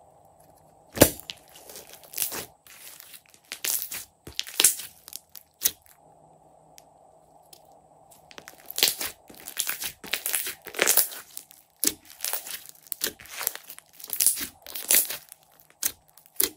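Glossy slime being pressed, poked and stretched by hand, giving irregular sharp crackles and pops of trapped air. There is one loud pop about a second in and a quieter lull around six to eight seconds, then dense crackling.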